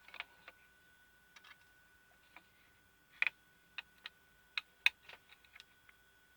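Scattered light clicks and taps of a small screwdriver and hand tools against the projector's small plastic and metal parts during disassembly, irregular and sparse, the sharpest about three seconds in and near five seconds.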